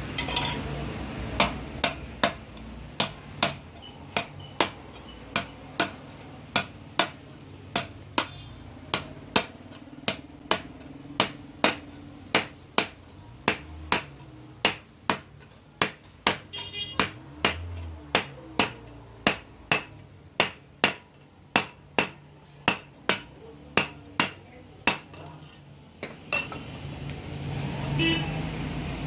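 Hand hammer striking copper sheet at a steady pace of about two blows a second, each blow sharp and ringing, as the metal is worked into a samovar part. The blows stop a few seconds before the end.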